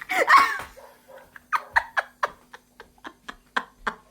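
A short vocal sound, then dishes clattering and clinking at a sink during hand washing-up: a string of short knocks and clinks, some ringing briefly, about two a second.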